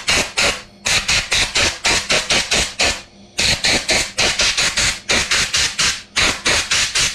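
Compressed-air blow gun blasting through a chainsaw air filter to clear out dust, the trigger pulsed in short rapid bursts about five a second, in runs with a few brief breaks.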